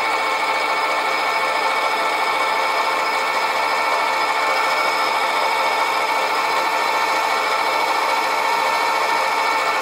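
Sieg SC4 mini lathe running steadily with a whine of several fixed tones, its tool taking a light cut into the face of a cast iron piston to open up a recess.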